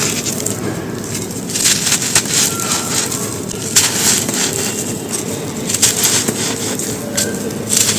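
Soft white chalky cylinders being crushed and crumbled: irregular crisp crunches and crackles, several close together, over a steady low background noise.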